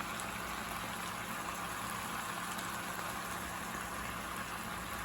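Chicken, bell pepper and onion stir-fry sizzling steadily in the pan, with oyster sauce just added.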